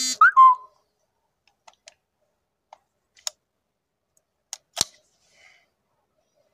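A short chirp at the start that rises and then holds its pitch. It is followed by scattered light mechanical clicks and one sharper clack about five seconds in, from handling the rifle and shooting gear.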